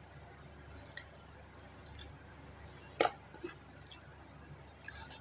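Close-up eating sounds: a metal spoon scraping and clicking in yellow rice in its paper-and-banana-leaf wrapping, with soft chewing. A few short clicks about once a second, the sharpest about three seconds in.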